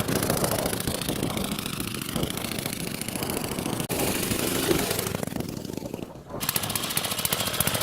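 Small 4 hp Briggs & Stratton single-cylinder engine on a mini bike running with a rapid firing beat, sagging briefly about six seconds in and then picking back up. It is running cold and not yet warmed up.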